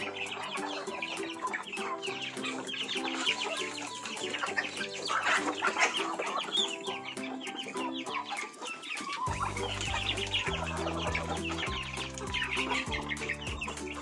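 A flock of chickens clucking and chirping as they feed together, over background music whose deep bass line comes in about nine seconds in.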